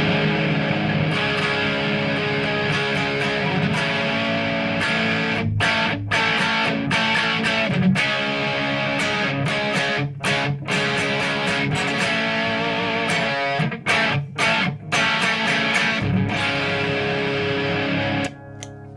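Electric guitar played through a Marshall JCM 2000 TSL 60 tube amp on its overdrive setting: distorted chords with a few brief stops, dropping much quieter shortly before the end.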